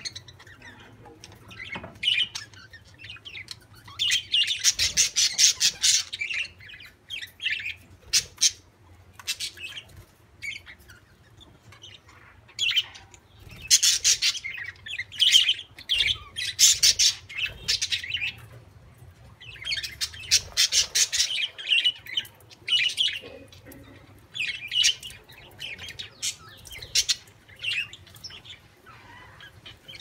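A flock of budgerigars chattering, chirping and squawking in repeated bursts of rapid, high-pitched calls, with short lulls between the bursts.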